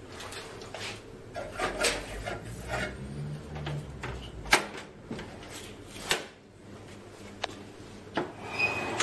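Plastic covers and panels of a Xerox 6204 wide-format printer being shut by hand: a series of knocks and clicks, the sharpest about four and a half seconds in. A low hum runs underneath until that click.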